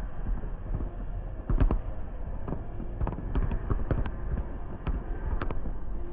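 Fireworks going off: an irregular scatter of sharp cracks and pops over a steady low rumble, loudest about a second and a half in.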